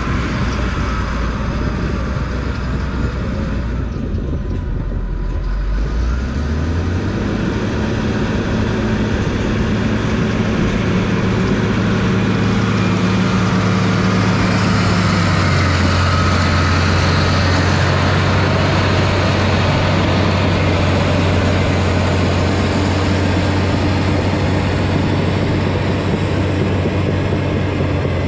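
Cat D6H Series II bulldozer's six-cylinder diesel engine working under load. It revs up about six seconds in, then holds a steady high pitch as the dozer pushes dirt and climbs the pile.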